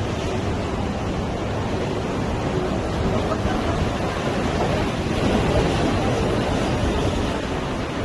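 Sea waves breaking and washing up a beach: a continuous rushing surf that swells a little about halfway through.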